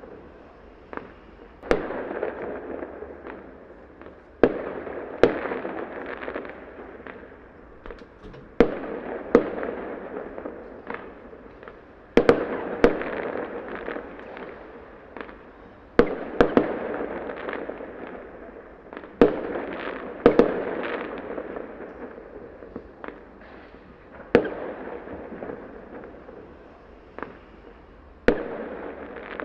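Small fireworks going off one after another: sharp bangs every few seconds, often in close pairs, each followed by a noisy tail that fades over a second or two.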